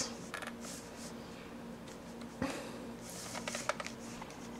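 Quiet room tone with a faint steady hum, a soft thump about halfway through and a few small clicks and rustles a little later.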